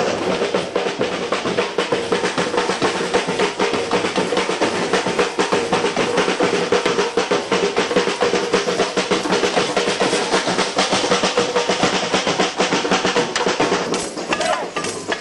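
Fast, dense drumming with snare and bass drum, close to a continuous roll, thinning out near the end.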